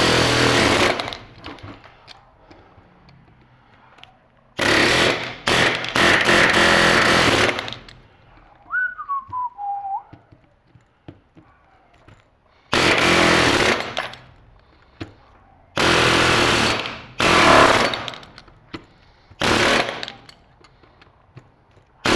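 Pneumatic air hammer hammering a chisel against a transformer's steel core to break the welds, in about five bursts of one to three seconds with pauses between. A faint falling squeal sounds once in one of the pauses.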